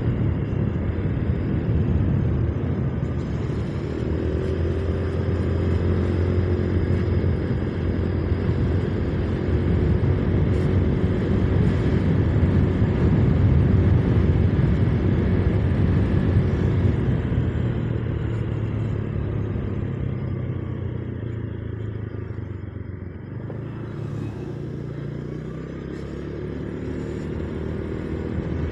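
Motorcycle engine running under way with road and wind noise. The engine note holds steady for a long stretch, eases off a little after twenty seconds in, then rises again near the end as the bike picks up speed.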